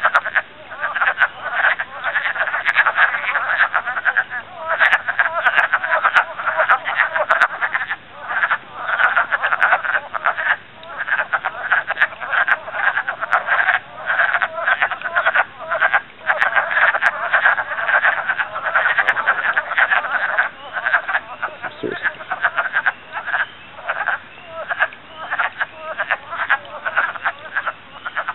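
Dense breeding chorus of wood frogs at a vernal pool: many males calling at once in a continuous run of short, overlapping calls.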